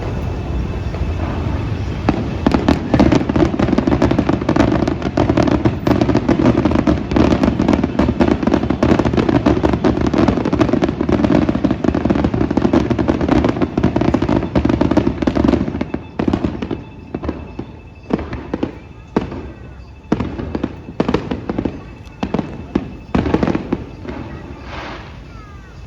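Fireworks display going off in a dense, continuous barrage of bangs and crackles. About 16 seconds in it thins out to separate bangs a second or so apart, which die away near the end.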